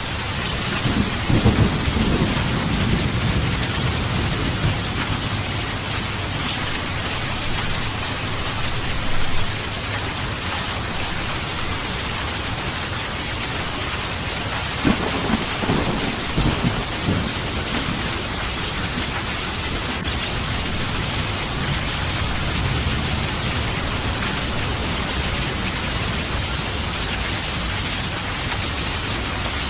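Steady rain falling, with thunder rumbling twice: once about a second in and again around the middle.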